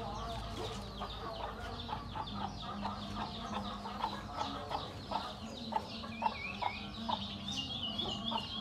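Chickens clucking in short repeated notes, with many quick high chirps over them and a warbling trill in the last few seconds.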